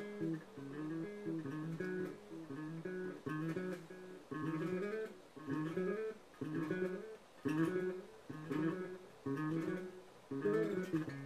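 Five-string ESP LTD B-55 electric bass played through effects pedals, including a Danelectro Dan-Echo delay: a riff of short phrases about a second apart, with notes sliding upward.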